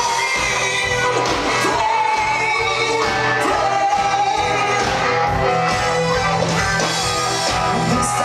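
Live rock band playing loud: lead vocals over guitar and drums.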